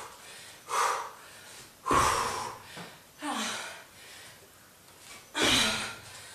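A woman breathing hard from exertion: four forceful, puffing exhalations, spaced a second or two apart.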